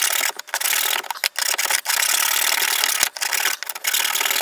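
A fine-toothed hobby saw rasping back and forth through a hardened plaster scenery mountain, in quick strokes with a few brief pauses.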